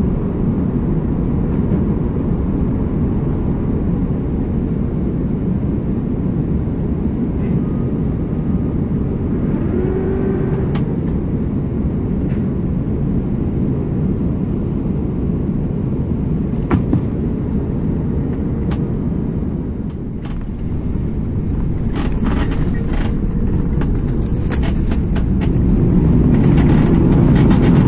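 Airliner cabin noise while landing: a steady low rumble of engines and airflow, with scattered knocks and rattles in the second half and the rumble growing louder near the end.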